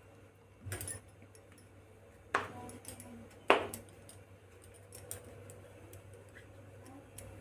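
Steel kitchenware knocking and clinking: a soft knock, then two sharp clinks with a short ring, as a steel plate with a steel spoon in it is moved and set down on a stone countertop.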